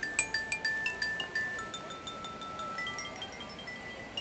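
Zither-like string instrument played across the lap, picking out a simple tune of single ringing notes: quick notes, several a second, for the first second and a half, then slower notes held longer.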